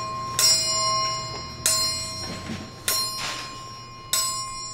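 Chimes striking the hour of midnight, four evenly spaced strikes about a second and a quarter apart, each one ringing on with several clear tones.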